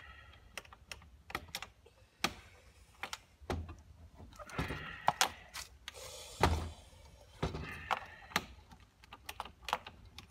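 A key being jiggled and turned in a stiff door lock: irregular sharp metal clicks and rattles, a dozen or more, with the lock not giving.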